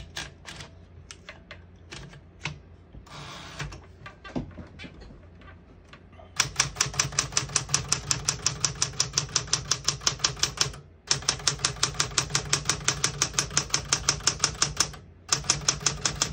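1967 Smith-Corona Super Sterling manual portable typewriter: a few scattered clicks at first, then fast, even keystrokes about nine a second, broken twice by short pauses.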